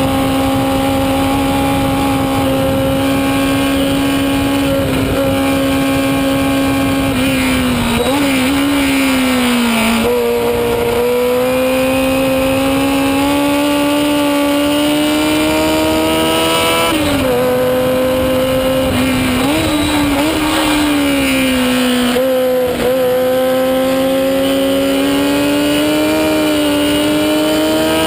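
1970 Chevron B17's 1000cc four-cylinder Formula 3 engine at high revs, heard from the cockpit with wind rush. The pitch drops sharply about five times as the driver changes gear or lifts for corners, and climbs again between the drops.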